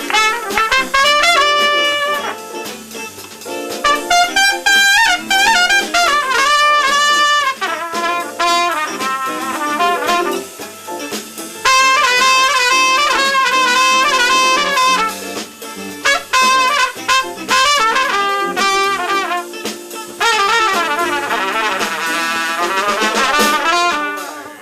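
A brass horn playing a solo jazz feature in a live band: a string of melodic phrases with short breaks between them.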